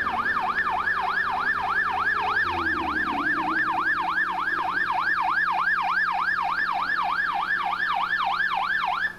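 Police car siren in a fast yelp, its pitch sweeping rapidly up and down about three times a second, cutting off suddenly near the end.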